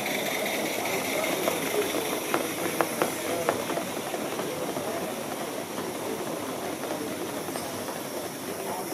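Live-steam G scale Puffing Billy NA model locomotives hissing steam steadily as the train runs past, with a handful of sharp clicks between about one and a half and three and a half seconds in.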